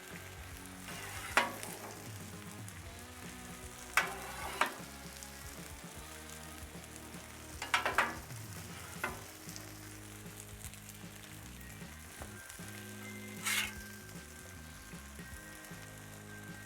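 Cheese frying with a steady sizzle on a Blackstone flat-top griddle, with a few sharp clicks and clatters scattered through it, about six in all.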